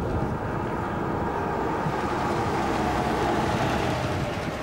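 Low, rolling thunder rumble that runs on without a break, with a sustained tone above it that sinks slightly in pitch.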